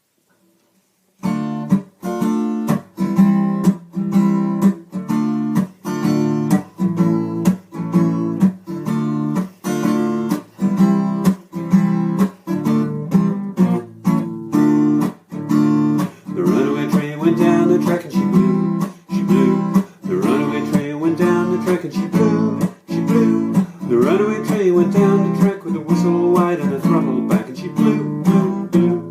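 Acoustic guitar strummed in a steady rhythm, starting about a second in; from about halfway through a second wavering melody line plays over the strumming.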